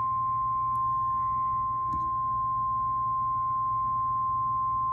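NOAA Weather Radio warning alarm tone: a single steady beep of about 1050 Hz, held without a break, signalling that a National Weather Service warning message follows. A low, constant hum sits beneath it.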